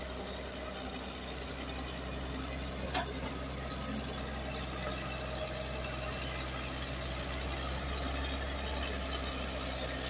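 Caterpillar crawler bulldozer's diesel engine running steadily as the machine works through wet clay, with one sharp clank about three seconds in.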